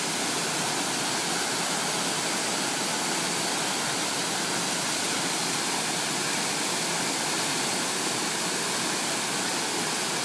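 A large waterfall pouring, a steady, unbroken rush of falling water.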